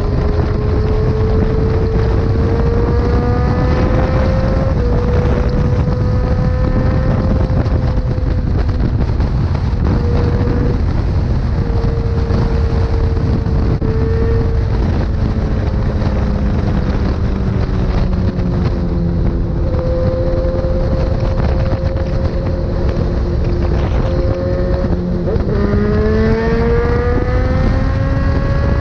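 Sport motorcycle engine running at speed under heavy wind rush on the microphone. Its pitch climbs slowly over the first few seconds, holds fairly steady, then rises again sharply near the end as the bike accelerates.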